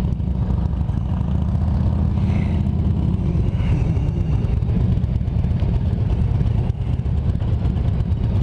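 Honda Gold Wing motorcycle engine running at low speed, a steady low hum heard from the rider's seat; the engine note drops a little about three seconds in.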